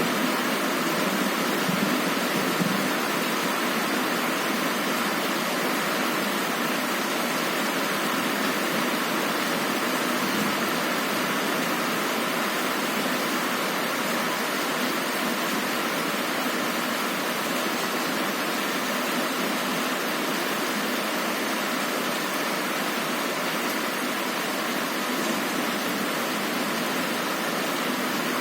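Heavy rain falling on a window: a steady, even hiss.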